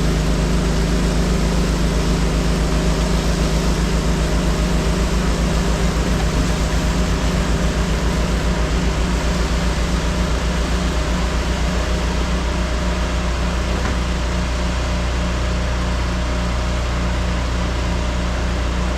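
A pressure washer running steadily under load: the engine and pump drone with a slight even pulse beneath the hiss of the high-pressure water spray. The machine has just been repaired and now runs with much more power.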